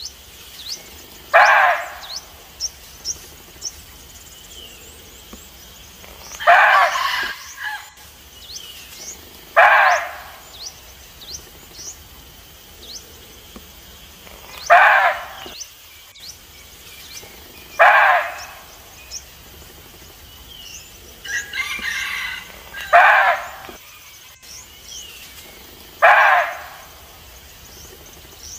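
Red muntjac barking: seven single short barks spaced a few seconds apart, the call muntjacs usually give when they sense a threat. Small birds chirp faintly between the barks.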